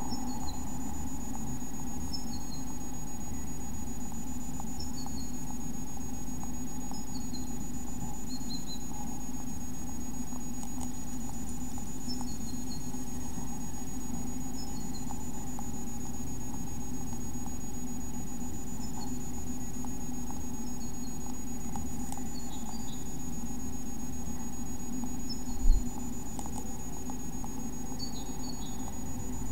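Steady electrical hum with a thin high whine from the nest-box camera setup, with faint, high, short bird chirps in quick falling pairs every second or two. A single dull thump near the end.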